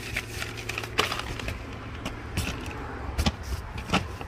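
Cardboard firework cake boxes being handled: a few sharp knocks and scrapes as the boxes are moved and set down, over a steady low hum.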